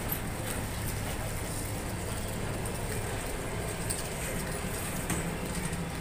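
Passenger coaches of a departing train rolling slowly past along the platform: steady wheel-on-rail rumble over a low hum, with a couple of sharp clicks about four and five seconds in.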